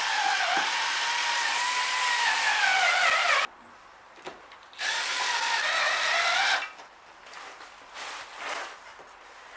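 Cordless screwdriver with a hex adapter driving self-tapping screws through a plastic side-skirt diffuser, its motor whine sagging in pitch as each screw bites. It stops about three and a half seconds in, then runs again for about two seconds.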